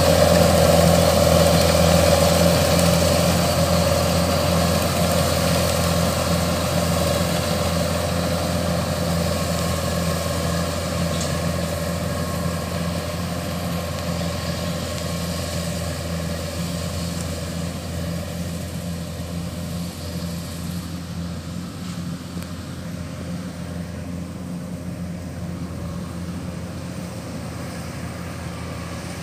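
Kubota combine harvester running steadily as it cuts rice, a constant engine and machinery drone that slowly fades as the machine moves away.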